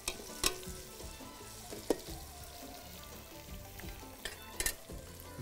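Chopped onions frying in hot oil in a pot, a steady sizzle, with a few short clicks of a spoon against the pot as it is stirred.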